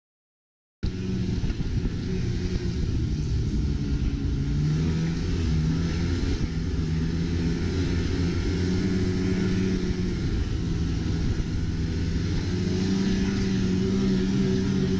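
Snowmobile engine running at a steady pace under way, heard from on board, its pitch rising and falling a little, with a steady hiss above it. It starts abruptly about a second in.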